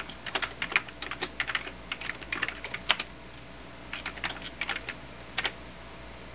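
Typing on a computer keyboard to enter shell commands. A run of keystrokes lasts about three seconds, then comes a pause of about a second, then a shorter run and a single keystroke near the end.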